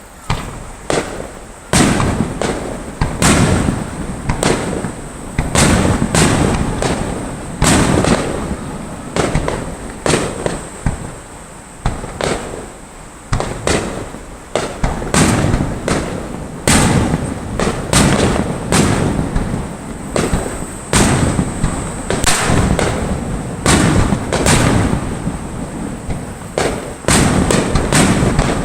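Fireworks bursting overhead in quick succession: sharp bangs, about one or two a second, each followed by a rolling echo.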